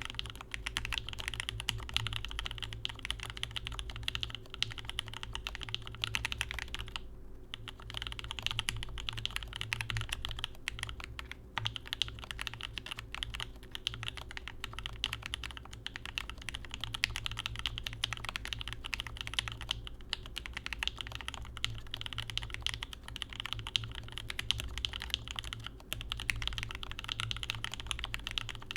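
Typing on a Gerald65 custom mechanical keyboard: lubed and filmed C3Equalz Tangerine linear switches in a gasket-mounted stacked acrylic case with GMK keycaps. A dense run of keystrokes, with brief pauses about seven and eleven seconds in.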